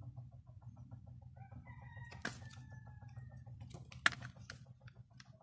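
A drawn-out animal call in the background, over a steady low hum and a fast, even ticking pulse. Two sharp clicks cut through, about two seconds in and, loudest, about four seconds in.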